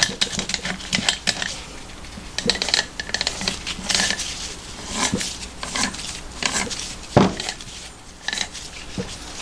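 Gears and crankshaft in a homemade aluminium four-cylinder crankcase turned by hand: a fast run of metallic clicking in the first second or so, then scattered metal clinks and small knocks, with one sharper knock about seven seconds in.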